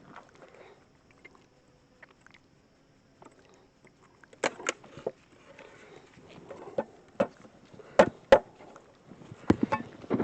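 Beehive equipment being handled, giving a series of sharp knocks and clunks with rustling in between. The loudest knocks come in pairs in the second half.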